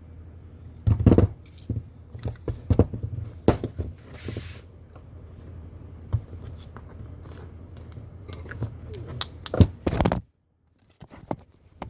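Small clicks, taps and scrapes of metal carburetor parts and a hand tool being handled during reassembly, over a steady low hum. A short hiss about four seconds in, then two loud knocks near the end before the sound cuts out for about a second.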